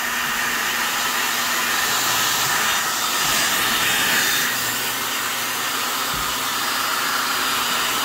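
Handheld electric hair dryer blowing steadily on its fan and heater, a little louder in the middle of the stretch and then easing slightly.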